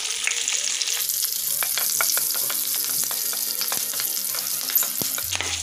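Cumin, bay leaves, cloves, cardamom and green chillies sizzling and crackling in hot oil in a frying pan, stirred with a wooden spatula.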